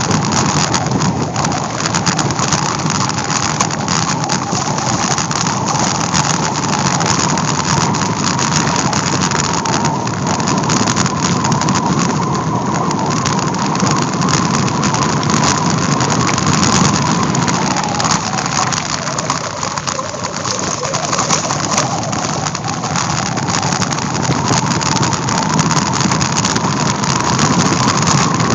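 Bicycle coasting downhill on a gravel forest road: a steady rush of tyres rolling on gravel and air against the microphone, with a faint whine that dips in pitch partway through and comes back near the end.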